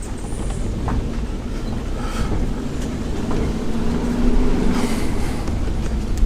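Motor vehicle driving along a road: steady low rumble of engine and tyres, with scattered knocks and rattles.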